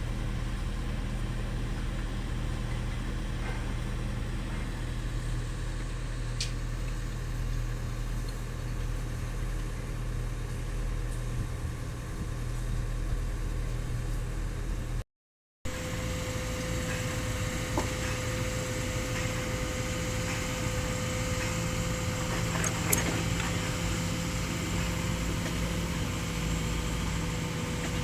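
Diesel engine of a hydraulic excavator running steadily at idle, a low even drone. The sound drops out for a moment about halfway through, and afterwards a steady higher tone runs with the engine.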